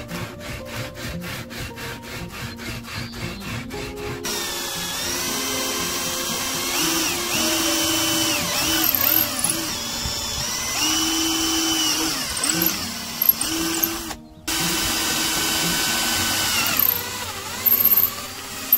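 Sandpaper rubbing back and forth on a wooden dowel, about four strokes a second. Then a drill press runs and bores into a wooden stock, its whine sagging in pitch as the bit loads in the wood and recovering as it frees up. The drilling breaks off briefly about fourteen seconds in.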